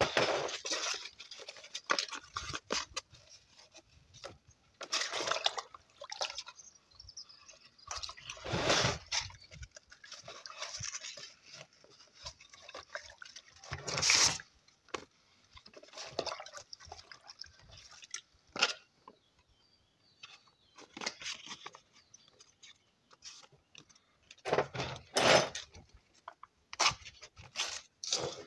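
Water splashing and dripping in a plastic bucket as sheets of wet-and-dry sandpaper are dipped and handled, in irregular bursts with a few light knocks.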